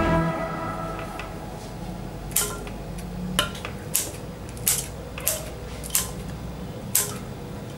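Scissors snipping curly red chillies into a blender jar: seven short, sharp snips, roughly one a second, starting a couple of seconds in.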